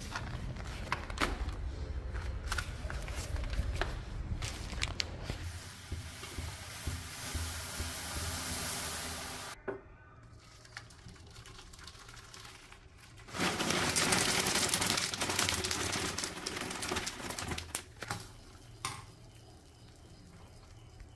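Breakfast being made in a steel plate: scattered knocks and clinks, then a long loud pour about two-thirds of the way through as chocolate cereal flakes and milk go into the plate.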